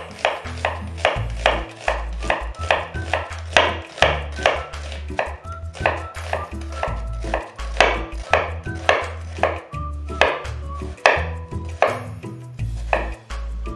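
Chef's knife mincing a peeled onion on a wooden cutting board: a steady run of sharp chops, about two to three a second. Soft background music with a bass line plays underneath.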